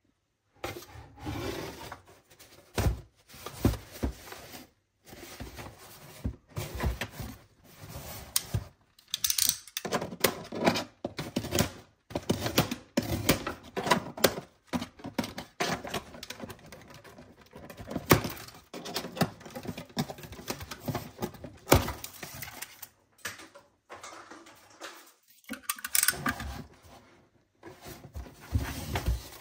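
Cardboard shipping box being handled on a desk: irregular taps, knocks and scrapes of hands and box, broken by a few short silences.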